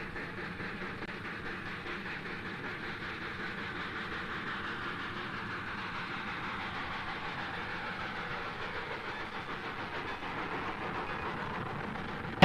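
A train running on rails, a steady rumble with a faint rhythmic clatter of wheels over rail joints.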